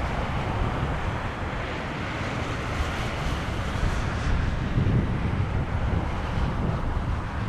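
Jet noise of an Airbus A321-231 on final approach, its IAE V2500 turbofans making a steady rushing roar. The hiss grows brighter about halfway through and then eases. Gusty wind rumbles on the microphone.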